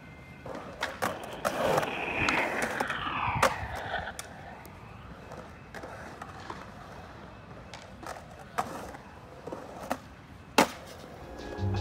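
Skateboard wheels rolling and carving on a concrete skatepark bowl, with scattered sharp clacks of the board and one loud smack about ten and a half seconds in as the board lands.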